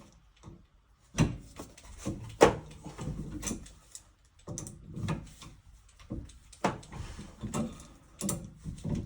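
Wrench work on threaded gas pipe fittings: a string of irregular metal knocks, clicks and scrapes as a nipple is tightened at the gas valve.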